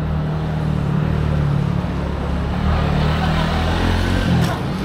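A motor vehicle's engine running close by in street traffic, a steady low hum that swells a little in the second half. There is one short sharp click near the end.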